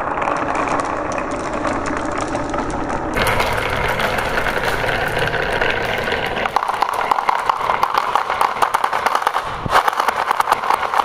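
Many glass marbles rolling and clattering down wooden and plastic marble-run tracks: a continuous rolling rumble full of rapid clicks as the marbles knock against each other and the track walls. The sound changes abruptly about three seconds in and again near the end.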